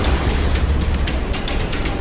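Background music with a steady beat of fast, crisp percussion ticks over a deep bass.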